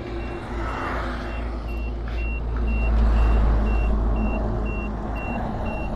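An electronic beeper sounding a steady high beep about twice a second, over a low rumble of road traffic that swells about three seconds in.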